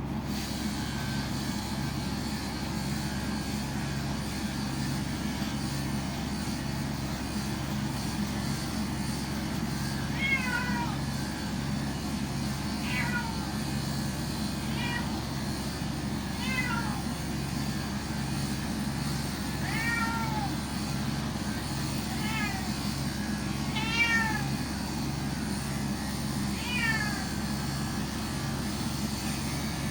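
A domestic cat meowing: about eight short meows, each rising then falling in pitch, a few seconds apart from about ten seconds in, over a steady low hum.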